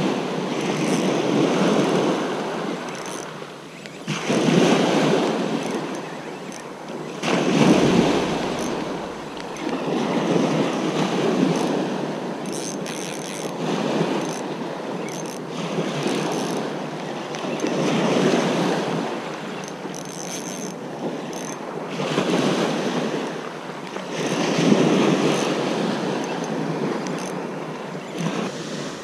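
Small waves breaking and washing up a shingle beach, the surf swelling and falling back every few seconds.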